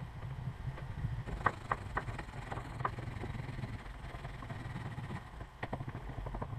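Small hand tool scraping and clicking against a leather sheath, with a quick run of sharp clicks about a second and a half in and another pair near the end, over a low steady hum.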